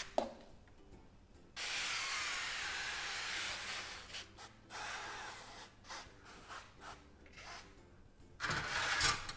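An aerosol can of avocado oil spray hisses in one long burst for a couple of seconds, coating the turkey. Then come quieter rubbing and handling sounds, and a louder rustle near the end as the turkey is turned over on its wire rack.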